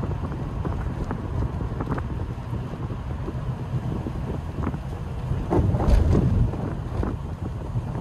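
A TVR's V8 engine burbling as the car drives along, with wind buffeting the microphone and a louder gust about six seconds in.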